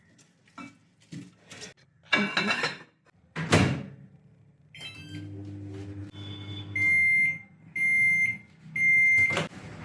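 A few knocks and clatter, then a Samsung microwave oven running with a steady hum and sounding three long, high beeps about a second apart near the end.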